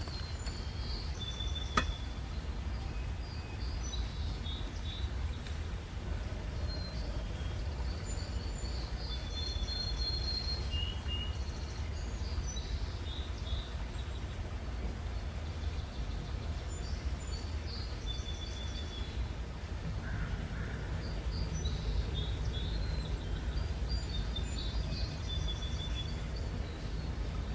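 Small birds chirping on and off, short high calls scattered throughout, over a steady low background rumble. A single sharp click sounds about two seconds in.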